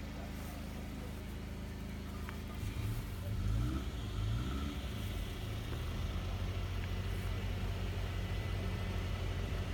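A vehicle engine idling steadily, with a brief rise in revs about three to four seconds in.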